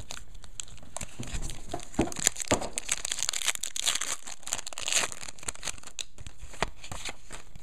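A 1999 Skybox Dominion football card pack's wrapper crinkling and tearing as it is ripped open and handled: a dense run of short crackles and rips.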